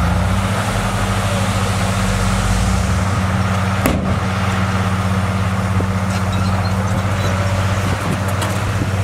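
Bulldozer's diesel engine running steadily with a low, pulsing drone, and a single sharp metallic clank about four seconds in.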